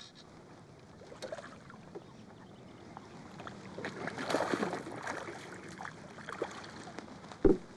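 Hooked rainbow trout splashing and thrashing at the water's surface while being played, loudest about four to five seconds in. A single sharp knock near the end, the loudest sound.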